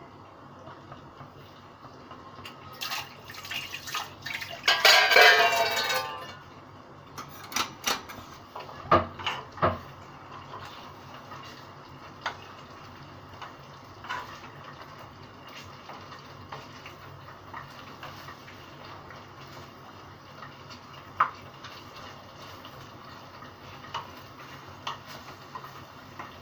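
A spoon stirring and scraping chicken pieces around a frying pan, clinking against the pan. The loudest scraping comes about five seconds in, then scattered light taps.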